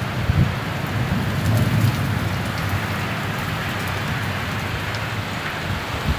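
Heavy rain pouring steadily during a storm, with a few short low rumbles in the first second.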